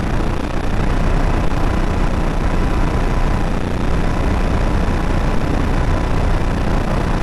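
Loud, steady rushing noise like static, unchanging throughout, with a faint steady high tone underneath.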